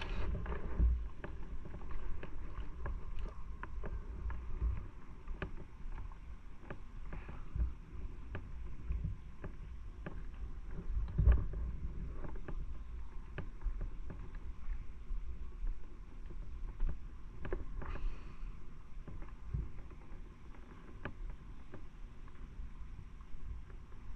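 A motorcycle on the move: low, gusty rumble of wind and road noise with scattered knocks. The loudest knock comes about eleven seconds in.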